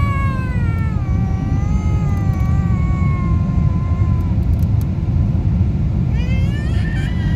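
A baby crying, with a long wail that falls in pitch and fades about four seconds in, then crying again near the end, over the steady low rumble of the airliner cabin.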